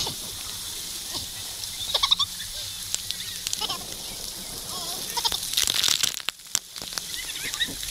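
Several people's voices giving short, wavering, high squeals and laughs, over a steady hiss of moving water.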